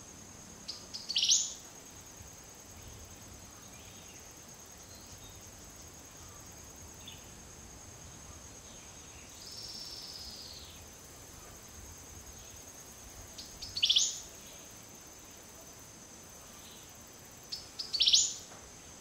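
Wild birds giving three sharp calls that sweep up in pitch, one about a second in and two in the last five seconds, over a steady high-pitched insect drone in tropical forest.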